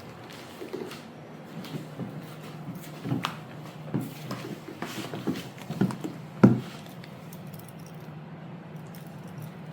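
Handling of a pair of patent high-heel platform shoes: a scattered run of short taps and knocks, the sharpest about six and a half seconds in, over a steady low hum.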